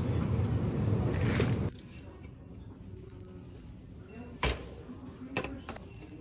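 Loud low rumbling background noise that cuts off abruptly about two seconds in. After it, quieter shop background with a sharp clack about four and a half seconds in and two lighter knocks near the end, from drink cans being handled and taken off a shelf.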